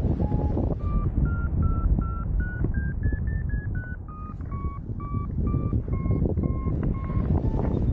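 Paragliding variometer beeping, about two to three short beeps a second. The pitch steps up to a peak about three seconds in, drops lower through the middle, then climbs again near the end: the vario's climb tone, higher for stronger lift. A steady rush of wind on the microphone runs underneath.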